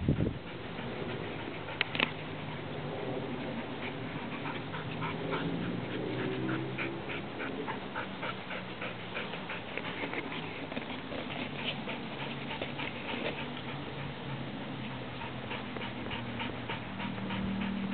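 Bearded Collie puppy digging in loose sandy soil: quick, irregular scratching of its paws through the sand, with low whining in places.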